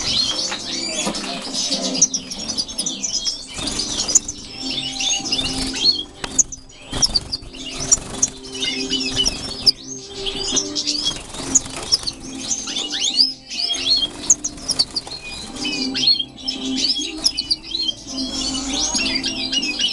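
A group of caged European goldfinches, mutation birds among them, twittering and chirping in quick, high notes without a break, over background music with sustained low notes.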